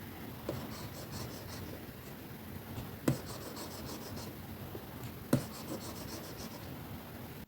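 Plastic stylus working on a drawing tablet screen: short runs of quick, light scratchy strokes, with two sharp taps, about three seconds in and again about two seconds later, over a steady background hiss of white noise.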